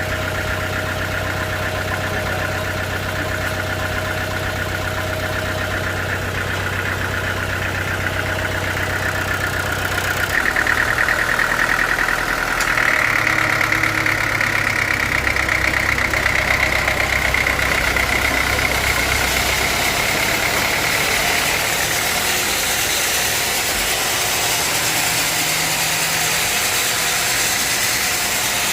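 Sawmill machinery running steadily with a low engine hum. About a third of the way in the engine note changes and a high whine joins in, rising slightly and holding to the end.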